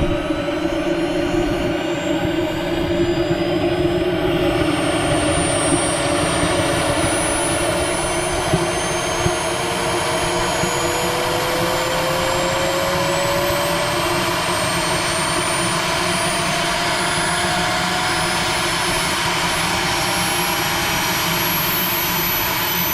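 Small turbine engine of a radio-controlled L-39 Albatross jet running during start-up, a steady rush under several whining tones that slowly rise in pitch as it spools up.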